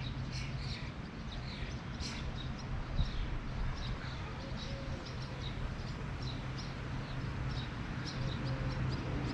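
Small birds chirping in many short, repeated calls over a steady low hum, with a single knock about three seconds in.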